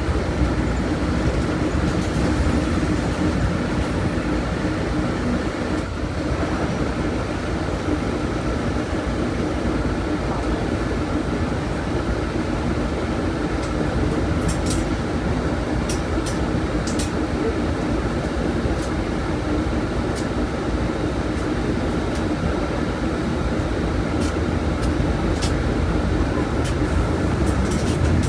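Volkswagen Volksbus 17.230 OD bus's diesel engine running steadily with an even low rumble. A scattering of short sharp clicks or rattles sounds in the second half.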